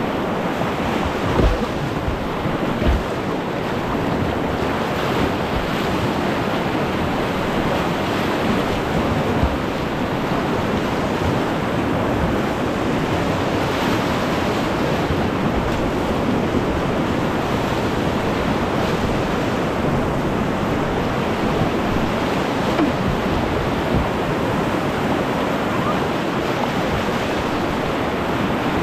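Steady rush of whitewater river current, with a few dull thumps in the first ten seconds.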